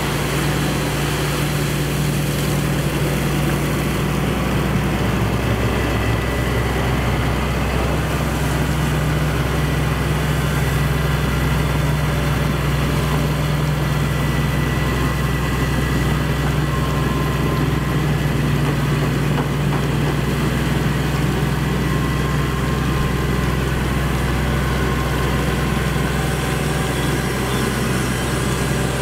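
Excavator's diesel engine running steadily with a low, even hum.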